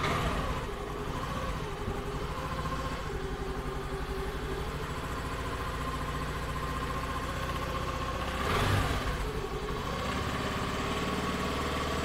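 Honda Activa 125 scooter's single-cylinder four-stroke engine idling steadily just after starting, with one short rev about two-thirds of the way through. It is running on fresh fully synthetic 10W-40 oil, and the owner finds it much changed in sound and with far less vibration.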